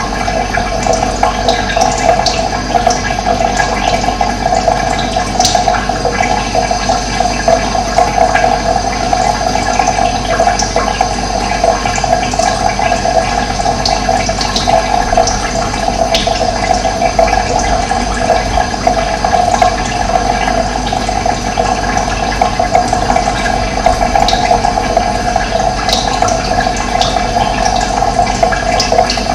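Running water, a steady rushing flow with no breaks.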